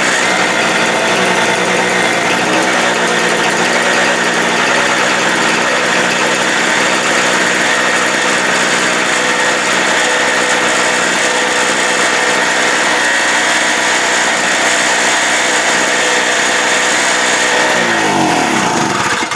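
Small portable generator engine running at a steady speed, then shut off near the end, its pitch falling as it winds down to a stop.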